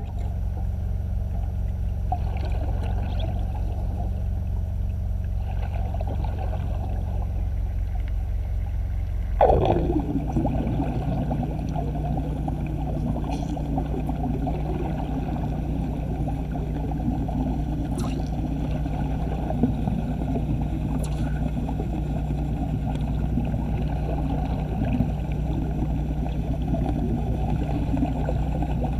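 A steady low machine hum with a rough, churning noise over it. About nine and a half seconds in, a brief falling sweep is heard and the hum settles onto a new pitch.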